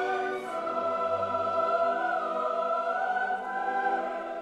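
Background music with choral, operatic-style singing in long held notes; the chord changes about half a second in.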